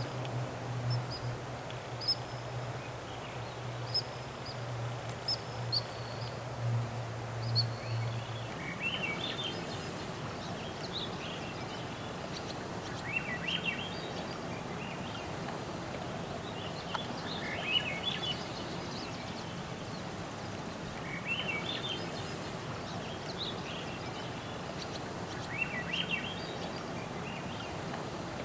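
A songbird singing short phrases about every four seconds, with thinner high chirps before them, over a steady hiss of background noise. A low steady hum runs underneath for the first eight seconds or so, then stops.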